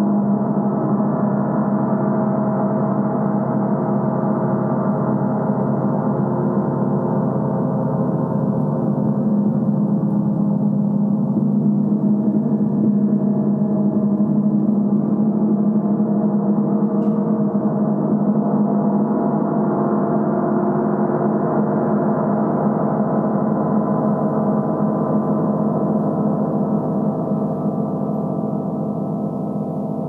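Large 60-inch symphonic gong sounding in an unbroken wash of deep, overlapping tones, strongest in its low hum, with no separate strokes standing out. It swells slightly midway and eases a little near the end.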